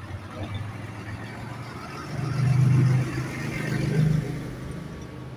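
Large modern farm tractor's diesel engine driving past close by. The engine note is steady and swells loudest about two seconds in, with a second peak around four seconds as the tractor goes by, then fades.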